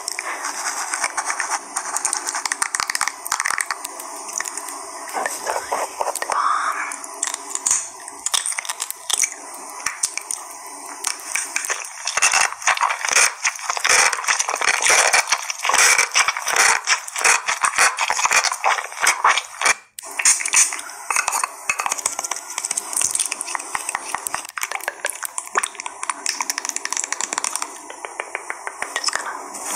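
Dense, irregular crisp clicks and taps from an ASMR sound track, with light clinking.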